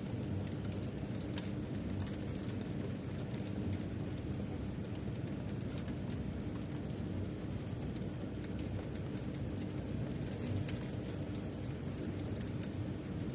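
Heavy rain falling steadily, heard from behind a closed window, with scattered faint ticks of raindrops.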